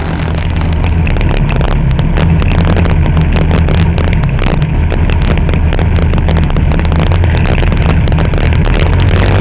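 Yamaha-engined dirt kart running hard at racing speed, heard from on board the kart, with the engine note building slightly in the first second and then holding steady.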